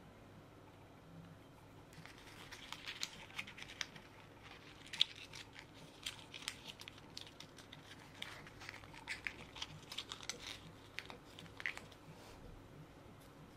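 Thin printed paperboard being folded and creased by hand into a tiny box: a faint run of paper crackles and small clicks, starting about two seconds in and stopping near the end.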